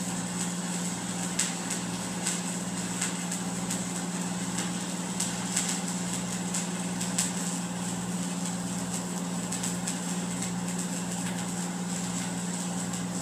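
Stick-welding arc crackling and hissing with irregular sharp pops as an eighth-inch 7018 rod runs an overhead bead at about 120 amps, over the steady hum of the welding machine.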